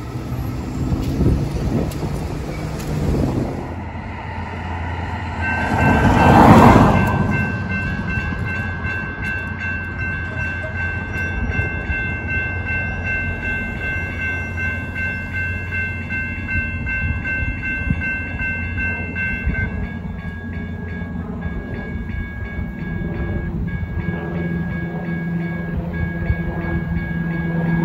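Electric light rail train passing close, loudest about six seconds in. After that, steady high warning tones from a level crossing sound as another light rail train approaches, with even ringing strikes from about twenty seconds and a low steady tone near the end.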